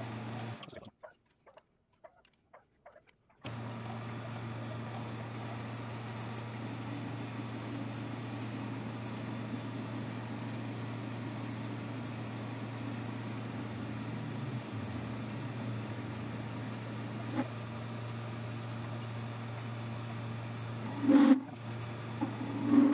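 Metal lathe running steadily with a low motor hum while turning a bar of O1 tool steel. The sound drops to near silence for a couple of seconds about a second in, and a brief louder knock comes near the end.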